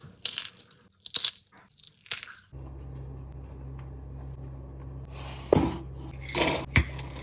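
Crisp fried nippattu (rice cracker) crunching three times in quick succession. About two and a half seconds in, a steady low hum takes over, with a few knocks and clinks of kitchenware near the end.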